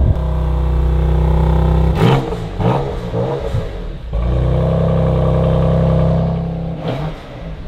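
BMW M2 Competition's S55 twin-turbo inline-six running at low revs while the car rolls down off ramps. About two seconds in there is a choppy stretch of knocks and changing engine tones, then the steady engine note returns and fades near the end. The owner likens the stock engine sound to an old tractor.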